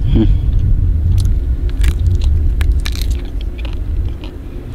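Chewing and crunching on crisp cornmeal-fried rattlesnake meat and ribs: a scatter of short crunchy clicks over a steady low rumble.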